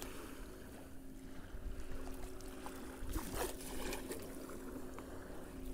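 Small waves lapping on a lakeshore and a small largemouth bass splashing at the water's edge as it is reeled in to the bank. A few light clicks come about three seconds in, over a faint steady hum.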